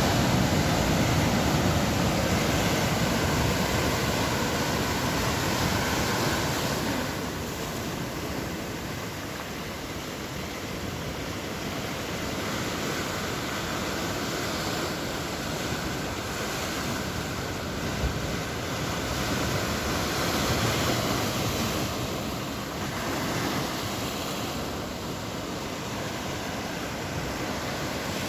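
Atlantic Ocean surf breaking on the shore: a steady rushing of waves that is loudest in the first few seconds, then eases and swells again.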